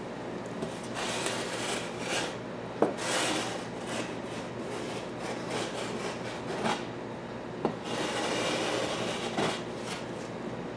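A straight edge scraping across a sand mold to strike off the excess casting sand, in several rasping strokes with a few sharp knocks.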